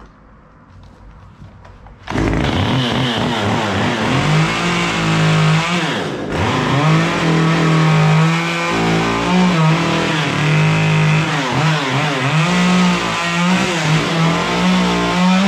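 Chainsaw cutting into a wooden block, making angled cuts to knock down the edges of a heart carving. It comes in loud about two seconds in, its engine pitch rising and falling as it bites into the wood, with a brief dip partway through.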